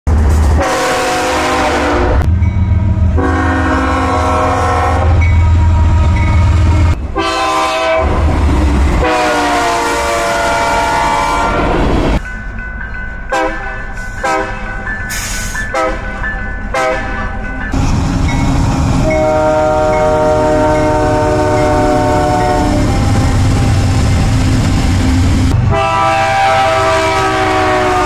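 Freight diesel locomotive air horns sounding in a string of edited-together clips. Long multi-note chord blasts come first, then a run of short toots around the middle, then more long blasts. A heavy low rumble of passing locomotives and rail cars sits underneath.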